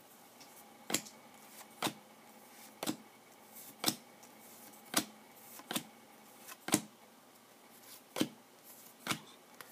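Bowman Chrome football trading cards being flipped through one at a time, each card giving a short, sharp snap as it is slid off the stack: nine snaps, roughly one a second.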